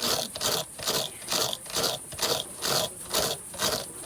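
Rhythmic hand scraping or rasping strokes on a cut motorcycle tyre during its repair, about three a second, cutting off suddenly at the end.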